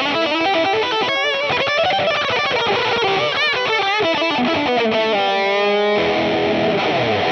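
Distorted electric guitar played through a Line 6 Pod Go's Mandarin 80 amp model (an Orange amp simulation), with a Scream 808 overdrive and a transistor tape delay, playing a lead line. Single notes with bends and vibrato run through the first half, a note is held with vibrato past the middle, and a fuller chord follows near the end.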